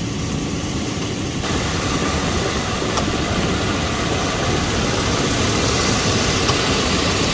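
2002 GMC Sierra engine idling steadily with the AC compressor clutch engaged, forced in by jumping the relay socket, so the compressor runs. The sound gets a little louder about a second and a half in, and there is a faint click about three seconds in.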